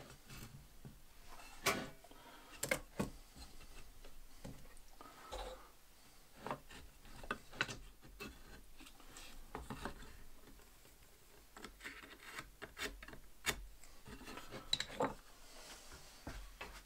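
Hand sanding block rubbed over a dry firewood log in short, irregular strokes, with several sharp knocks where the block strikes the wood.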